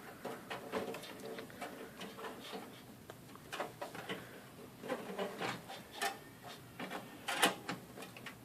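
A graphics card being handled and fitted into a computer case: scattered clicks, taps and light scrapes of the card's bracket and edge against the case and slot, with a few louder knocks in the second half.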